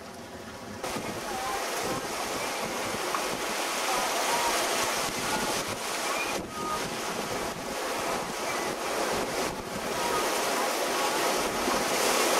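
Wind buffeting the microphone and the rush of breaking waves and spray along the hull of a sailing yacht making about 8 knots in 25-knot trade winds. A quieter start gives way to the louder wind and water about a second in.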